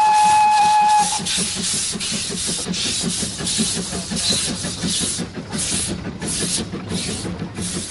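Narrow-gauge steam locomotive's whistle, one steady high tone that cuts off about a second in. It is followed by the locomotive working along with a steady, regular beat of exhaust chuffs, two to three a second.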